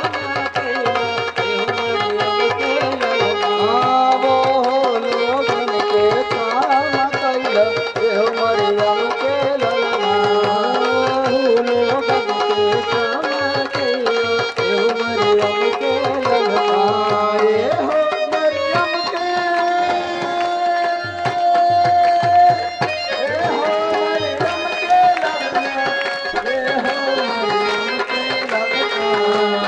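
Hindi-Bhojpuri devotional song music: tabla keeping a steady beat under a melody of long held notes. The congregation is clapping along.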